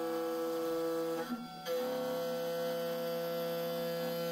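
Pocket NC V2 desktop five-axis mill's spindle running an end mill through aluminum: a steady hum of several tones that dips briefly and shifts pitch about a second and a half in.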